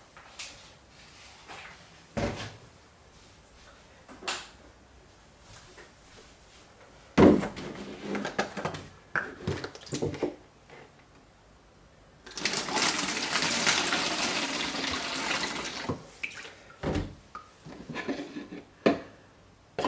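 Distilled water poured into a plastic HDPE container, a steady pour lasting about four seconds past the middle. Before it come knocks and rattles of the containers being handled, the loudest a sharp knock about seven seconds in.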